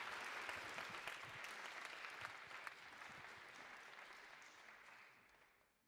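Audience applauding, the clapping fading away to near silence near the end.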